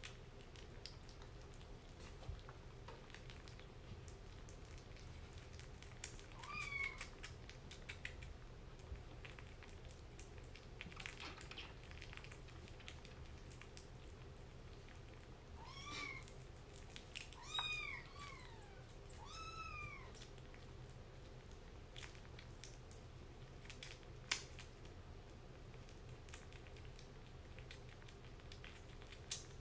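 Kitten mewing a few times in short rising-then-falling calls, one about a quarter of the way in and a run of three or four just past the middle, over faint small smacking clicks of a kitten eating wet food from a bowl. A single sharp click comes later on.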